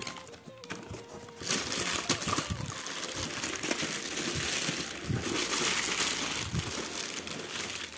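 Thin plastic bag crinkling and rustling as hands lift a plastic-wrapped amplifier out of its cardboard box, starting about a second and a half in.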